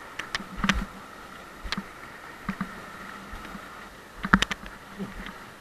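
Packraft being paddled through shallow stream water: scattered sharp knocks and splashes from the paddle and hull, the loudest a little after four seconds in, over a faint steady whine.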